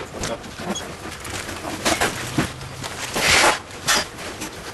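Shrink-wrapped furniture being handled and pushed across a truck trailer's floor: irregular knocks and scrapes, with a longer scraping rub about three seconds in.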